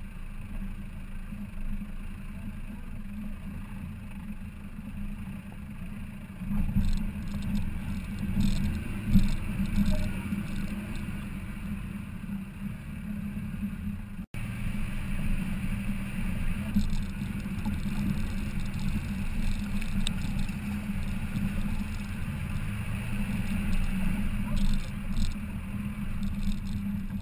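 Off-road 4x4 driving over rough ground: a steady low engine and road rumble, with bumps and knocks that grow louder from about six seconds in.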